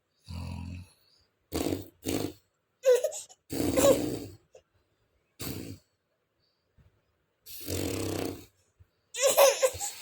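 A person snoring in a series of short, irregular rasping snorts, some deep and buzzy, with a burst of voice near the end.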